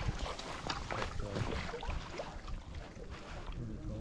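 Small choppy lake waves lapping and splashing close to the microphone: a steady wash of water broken by many small slaps.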